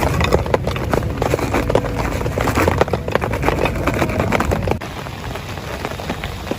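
Heavy rain with many close, irregular drips and taps. About three-quarters of the way through it changes abruptly to a softer, steadier rain hiss.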